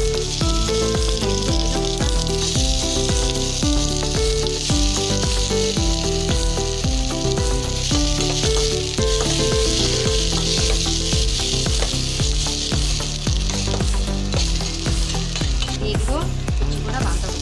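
Sliced onions and chillies sizzling in a steel kadai while a metal spatula stirs them, over background music with a repeating melody and bass line. The sizzle is strongest through the middle.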